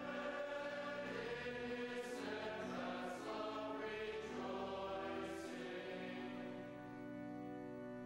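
A church congregation singing together, holding long notes that move from one pitch to the next and growing quieter over the last couple of seconds.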